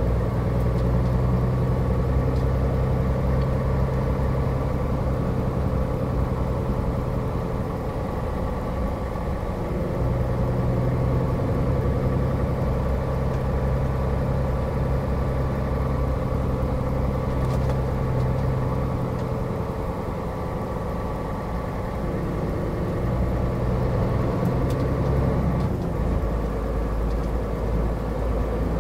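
Scania R450 truck's 13-litre inline-six diesel running at low speed, heard from inside the cab as a steady low drone. The drone drops away briefly three times: about a third of the way in, around two-thirds of the way in, and again near the end.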